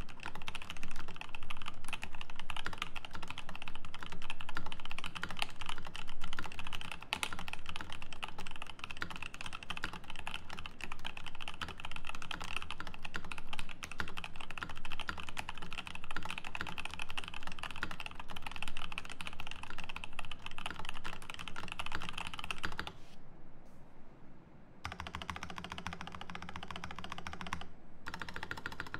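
Fast, continuous typing on a Rama M65-B mechanical keyboard with a brass plate, lubed Paco switches and GMK keycaps: a dense run of keystroke clacks. Near the end the typing breaks off for about two seconds, then a different, steadier sound follows.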